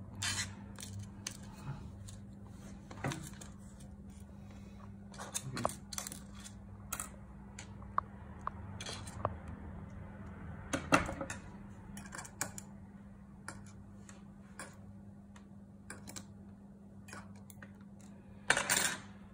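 Scattered small clicks and metallic taps of a screwdriver and loose parts being handled while an opened MacBook Pro is reassembled, over a steady low hum. A quick run of louder clicks comes near the end.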